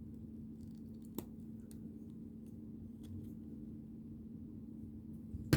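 Plastic building pieces being handled and fitted together: faint scattered clicks, one sharp click about a second in and a louder snap at the very end, over a low steady hum.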